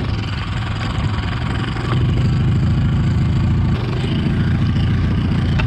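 Yamaha 25 hp two-stroke outboard motor running slowly on a jon boat: a steady low drone that gets a little louder about two seconds in.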